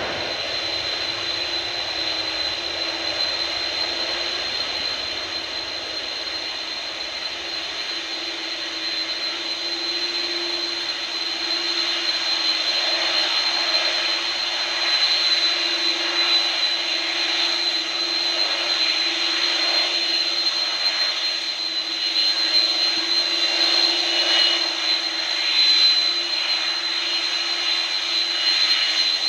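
McDonnell Douglas MD-11 tri-jet's engines running at idle while it holds on the runway before its takeoff roll: a steady high-pitched turbine whine over a lower hum, growing a little louder about halfway through.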